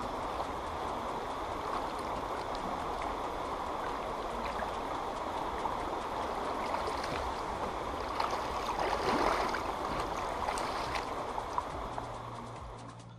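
River current flowing and gurgling around a wading angler, with hands splashing in the shallow water and a louder stretch of splashing about eight to ten seconds in. The sound fades out near the end.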